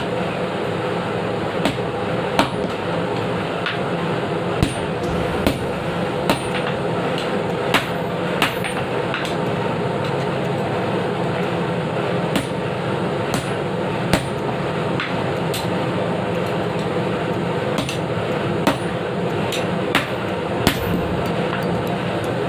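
Hammer striking metal in irregular, sharp blows, roughly one every second or two, over a steady hum.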